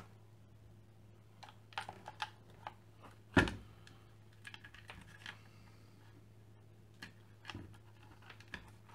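Scattered light clicks and knocks of a circuit board and its wires being handled and set against a base plate, with one louder knock about three and a half seconds in. A faint steady hum runs underneath.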